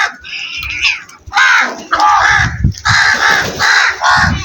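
Crows cawing: a higher, thinner call in the first second, then a run of about six harsh caws in quick succession.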